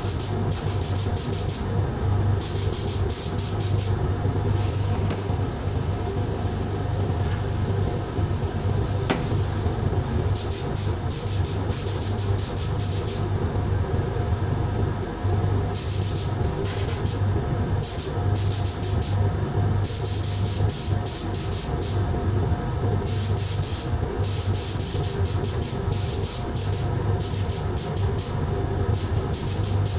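Sandblasting: a blast of air and abrasive hissing on and off in many short spurts over a steady low machine hum.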